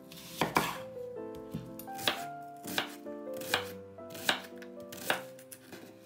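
A kitchen knife slicing through an onion onto a bamboo cutting board. The blade knocks on the board about every three-quarters of a second, over soft background music.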